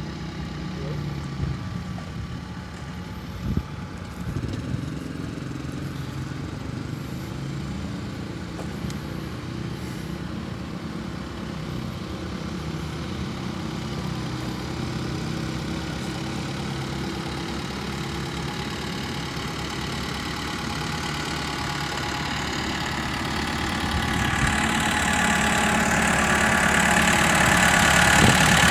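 Komatsu PC78MR compact excavator's diesel engine idling steadily, getting louder near the end as the open engine compartment comes close.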